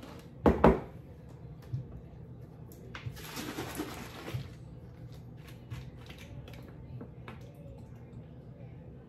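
Kitchen sounds: two sharp knocks close together about half a second in, then a tap running briefly for about a second and a half, with light clicks of utensils around it.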